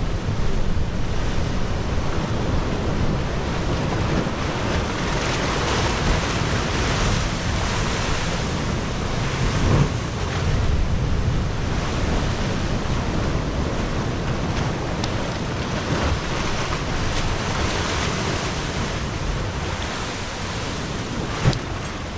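Sea surf surging and breaking through a narrow rock channel, a continuous rushing wash that swells and eases every few seconds, with wind buffeting the microphone.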